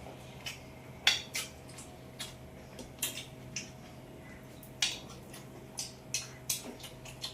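Eating at the table: scattered short clicks and clinks of a rice-and-fish meal being eaten from plates, the loudest about a second in, over a faint steady hum.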